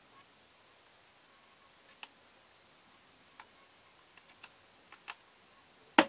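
Quiet room tone broken by a few faint, scattered clicks and taps, with one sharper click near the end: handling noise from a plastic quadcopter being moved about by hand.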